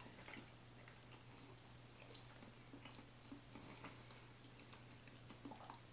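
Near silence with faint eating sounds: soft mouth and spoon clicks as two people chew spoonfuls of rice pudding, one click a little louder about two seconds in, over a faint steady low hum.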